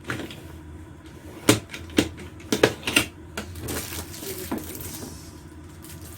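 A series of sharp clicks and knocks of objects being handled and set down, mostly bunched together in the middle.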